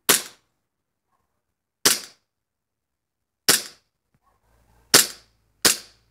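WE Glock 18C Gen 4 gas blowback airsoft pistol firing five single shots on semi-automatic, each a short sharp crack. The shots come one to two seconds apart, the last two closer together.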